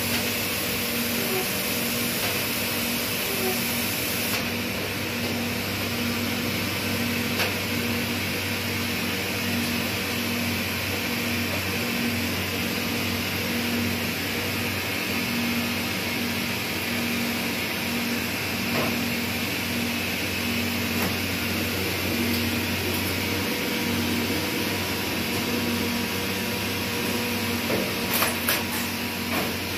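Steady hum and hiss of an Amada LC1212 laser cutter and its automatic sheet loader running, with a low tone pulsing on and off a little more than once a second. A few sharp clicks come near the end.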